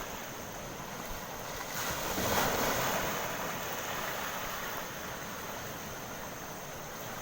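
Steady wash of surf and wind, swelling briefly about two seconds in.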